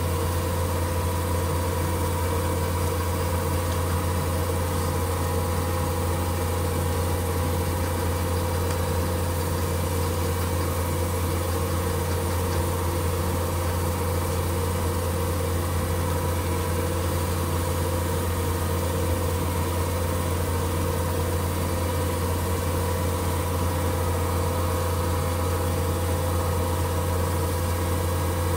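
Small metal lathe running at a steady speed, a constant low motor hum with a faint whine, while abrasive paper is held against the spinning tungsten workpiece to sand and finish it.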